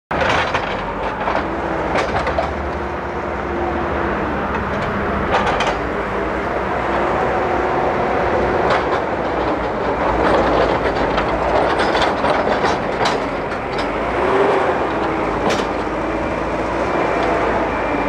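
Backhoe loader working: its diesel engine runs steadily under load, with irregular sharp clanks and knocks as the front bucket scrapes soil and breaks up concrete kerb stones.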